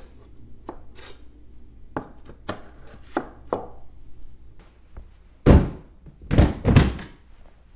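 Thin plywood divider slid into the ribs of a plastic Flex Stack Pack toolbox, making several light wooden taps and knocks against the plastic. About five seconds in come three louder knocks from the hard-plastic stacked toolboxes being handled.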